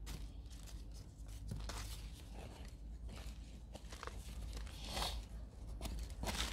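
Hands rummaging through soil in a potato grow bag: scattered short rustles and crunches, over a low steady hum.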